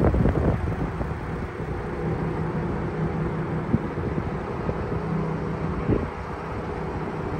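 Twin-turbo 3.5-litre V6 of a Hennessey-tuned 2021 Ford F-150 Raptor idling steadily, with a couple of brief knocks.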